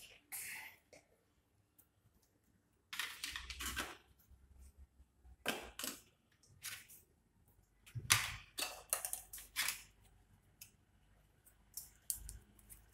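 Scattered short clicks and rustling scrapes of objects being handled, in small clusters about three seconds in, around five to seven seconds, from eight to ten seconds, and once more near the end.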